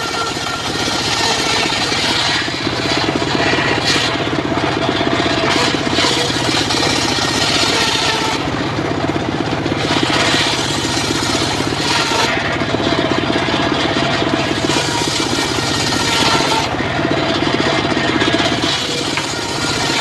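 Engine-driven mobile circular sawmill running under load while its blade rips a log lengthwise. A steady engine drone runs throughout, with a harsh rasping cutting noise that swells and eases every few seconds as the blade bites into the wood.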